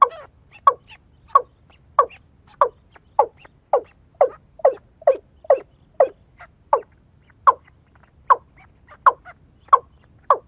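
A bird calling a rapid, regular series of short, sharp notes, about one and a half to two a second, each dropping slightly in pitch.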